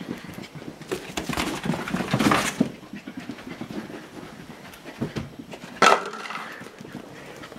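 Corgi puppy running wild on a hard floor: a quick scatter of claw clicks and scrabbling paws, with panting. A loud, sharp sound stands out about six seconds in.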